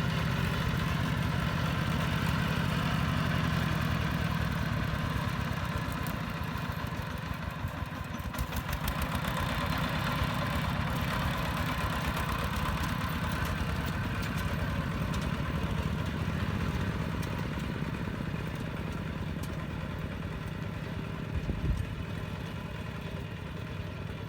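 Kubota ZT-150 single-cylinder diesel engine of a two-wheel hand tractor running steadily with a fast even firing beat, easing slightly in loudness later on, with one brief louder knock near the end.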